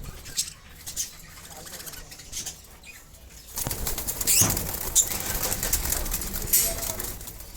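Small pet parrots flapping their wings in a cage. A few short flutters come first, then a longer, louder burst of flapping from about three and a half seconds in.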